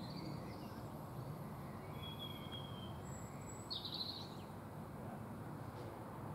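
Low, steady rumble of a distant approaching Class 66 diesel locomotive's two-stroke V12 engine, with birds chirping over it, the loudest chirp a little past the middle.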